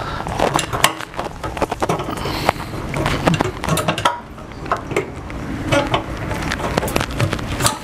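Irregular clicks, knocks and scraping from gloved hands working parts into place at the top of a motorcycle fuel tank.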